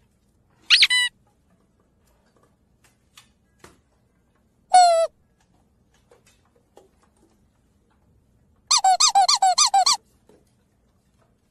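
Pug puppy giving high-pitched squeaky yips: one short yip about a second in, a falling yip around five seconds, and a quick run of about ten yips near the end.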